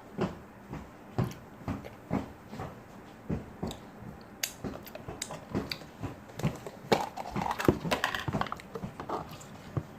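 Close-miked chewing of a homemade taco, with short wet smacks and crunches at about two a second. The chewing gets quicker and denser about seven seconds in.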